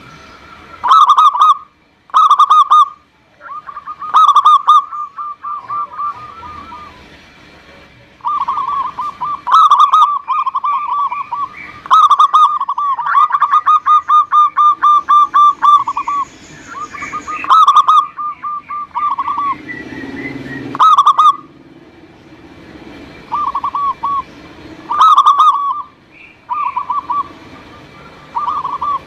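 Zebra dove (perkutut) song: loud phrases of quick, rhythmic cooing notes, one phrase after another with short pauses between.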